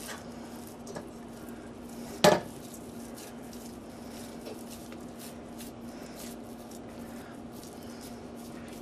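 One sharp clink of kitchenware about two seconds in, with small clicks before it. Then faint soft pats and squelches of raw ground meat being pressed and shaped between the hands, over a steady hum.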